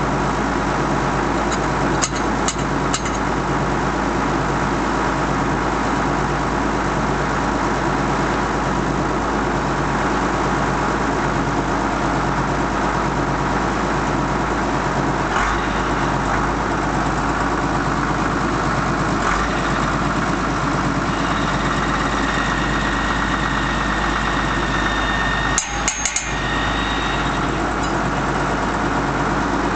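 Engine of the boom loader idling steadily with a slow, even pulse, while metal tools clink a couple of times about two seconds in. Near the end comes a short cluster of sharp metallic cracks as the forks bear down on the long torque wrench and a lug nut breaks loose.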